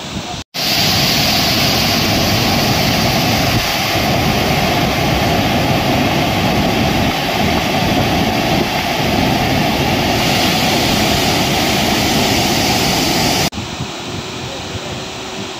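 Loud, steady rushing roar of a large waterfall cascading over rock, heard close up. It starts after a brief gap about half a second in and cuts off abruptly near the end, giving way to a quieter rush of falling water.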